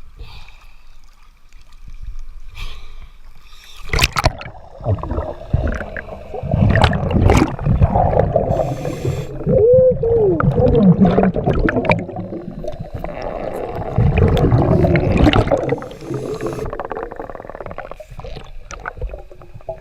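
Underwater bubbling and gurgling from a scuba diver's regulator breathing and exhaust bubbles, picked up through a camera housing. It starts about four seconds in and surges irregularly.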